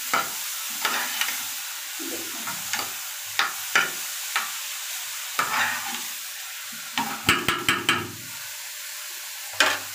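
Chopped vegetables sizzling in a little oil in a steel frying pan, with a metal spoon stirring and scraping against the pan in irregular clinks and scrapes. A quick run of scrapes comes about seven seconds in.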